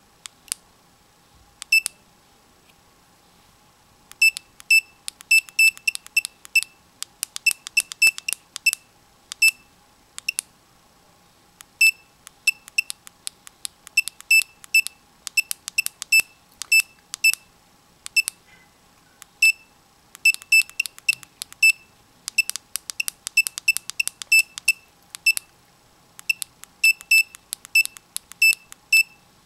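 Lucky FF518 wristwatch fish finder giving short, high key beeps as its buttons are pressed to step through the settings menu, one beep per press, singly and in quick irregular runs.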